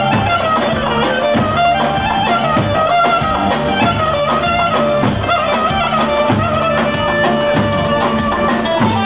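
Live dance music: a large double-headed bass drum beaten in a steady rhythm under a wavering, ornamented melody.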